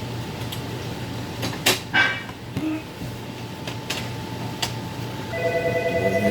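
A few sharp clicks and knocks over a steady low hum. About five seconds in, an electronic telephone ringer starts a rapid, pulsing trill.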